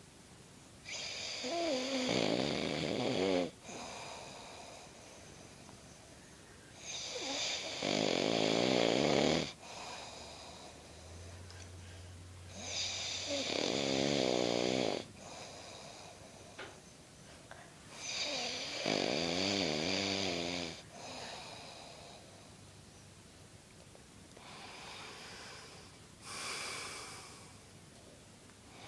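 A person snoring: four long snores of two to three seconds each, about six seconds apart, then a fainter fifth near the end.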